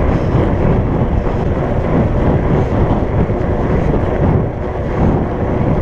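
Steady wind rumble on the microphone while riding a fat bike into a headwind, mixed with the road noise of its big tyres rolling on pavement.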